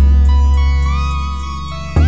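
Background music led by guitar over a strong bass, holding a chord that fades slowly, with a new chord struck near the end.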